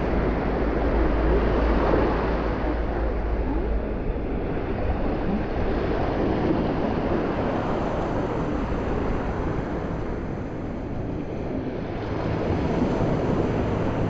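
Ocean surf washing onto the beach, with wind rumbling on the microphone, heaviest in the first few seconds.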